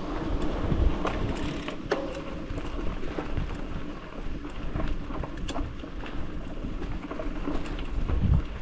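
Bicycle ridden along a dirt forest trail: a low wind rumble on the microphone, with scattered clicks and rattles from the bike over bumps.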